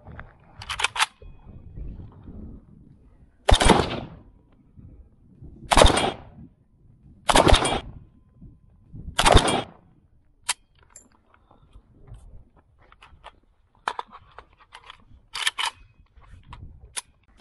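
Gunshots: four loud single shots about one and a half to two seconds apart in the first half, with fainter sharp cracks scattered around them, some in quick pairs.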